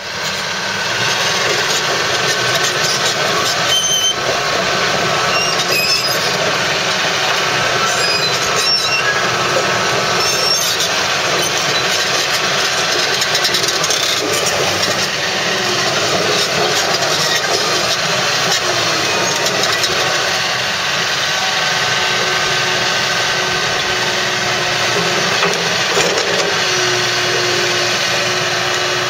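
Komatsu PC250LC hydraulic excavator running steadily as its boom and arm are worked: diesel engine and hydraulics at working revs. A few sharp metallic clicks come in the first ten seconds or so, and a steady whine joins about two-thirds of the way through.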